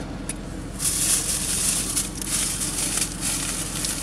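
Plastic food packaging rustling and crinkling, starting about a second in, over the low steady hum of the car's idling engine.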